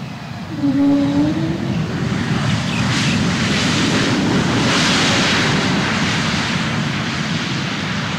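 Airbus A320neo jet engines roaring as the airliner touches down and rolls out on the runway. The roar swells from about two seconds in to a peak near five seconds, then eases slightly. A brief low tone sounds about a second in.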